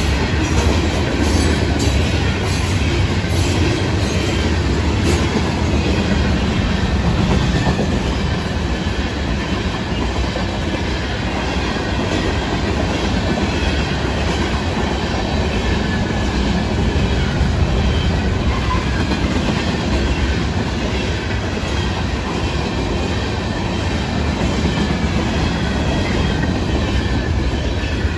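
Freight cars of a long mixed freight train rolling past close by: a steady rumble and rattle of steel wheels and trucks on the rails, with regular clicks over rail joints in the first few seconds.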